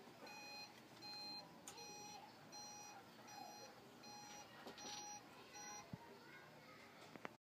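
Automatic swing door opener beeping while the coop door swings shut: short, evenly spaced beeps, about one every 0.7 seconds, that stop about six seconds in. A sharp click comes just before the sound cuts off.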